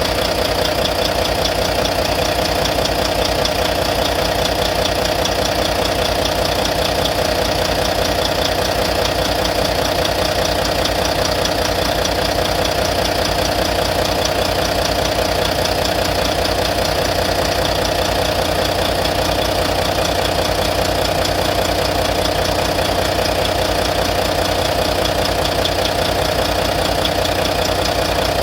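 Volvo D13 inline-six diesel engine running steadily at idle with a rapid tapping from the top end, which the owner takes for lifter noise that appeared after the injectors were replaced.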